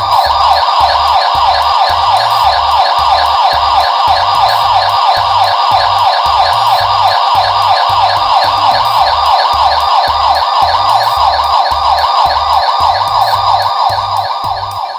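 Bicycle siren horn sounding a loud, fast-repeating siren wail. It starts abruptly and cuts off just before the end, over background music with a beat.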